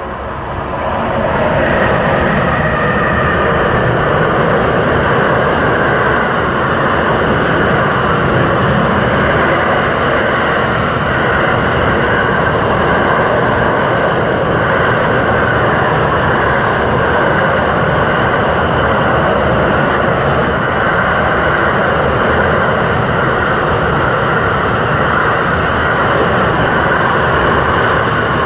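Container freight train hauled by an electric locomotive passing close by. The wagons' wheels on the rails make a loud, steady rumble and clatter that builds over the first second or two as the train arrives, then holds.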